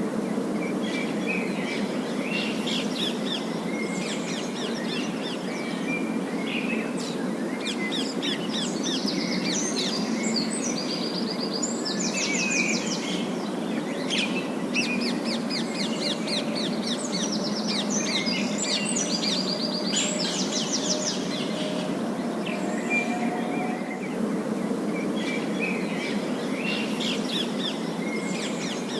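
A flock of parakeets chattering and warbling in rapid trills and chirps, thickest in the middle stretch, over a steady low background noise.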